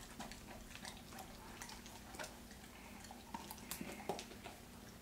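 Faint, irregular small clicks and smacks of a dog chewing and licking a piece of beef taken from a hand.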